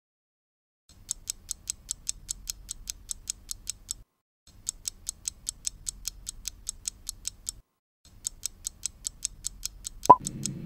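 Clock-ticking sound effect for a quiz countdown timer: fast, even ticks, about seven a second, in three runs with short breaks. Just before the end, a single sharp click with a short tone marks the timer running out.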